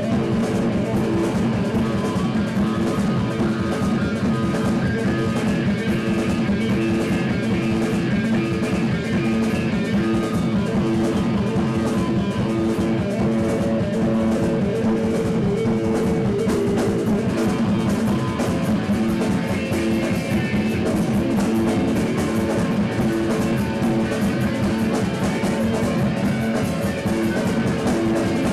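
Live rock band playing: electric guitar over a drum kit, with dense, steady drumming and sustained guitar notes, loud and unbroken.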